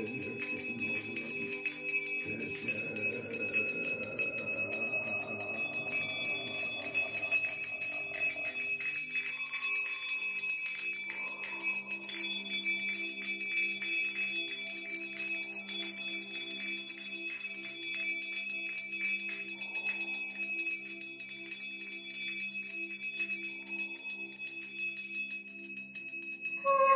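Brass hand bells shaken continuously in a shamanic ritual: a single handheld bell and a bunch of small bells ringing and jingling rapidly. A low steady drone sits under the bells from about ten seconds in.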